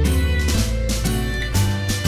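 Background music: a plucked guitar tune with a steady beat.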